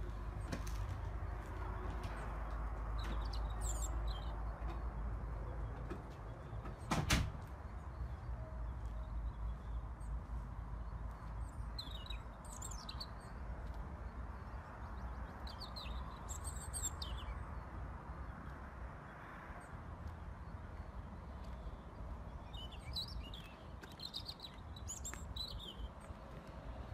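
Small birds chirping in short bursts on and off over a steady low rumble, with one sharp knock about seven seconds in.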